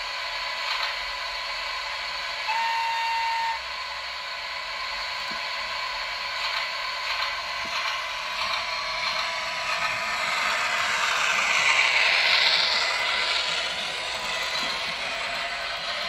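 ESU LokSound V4.0 sound decoder in an ACME HO-scale ETR 300 Settebello model electric train playing its motor sound as a loud, steady hiss with a whine, swelling about twelve seconds in; the owner finds it sounds like a jet aircraft rather than an electric train's motors. A short whistle tone sounds about two and a half seconds in.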